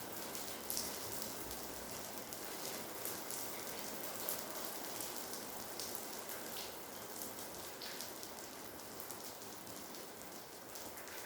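Steady rain falling, a continuous hiss dotted with many small drop impacts.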